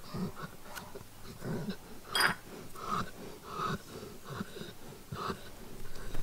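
Old English Sheepdog breathing noisily in a string of short wheezy snuffles while the hair in its ear is plucked, with a louder snort about two seconds in.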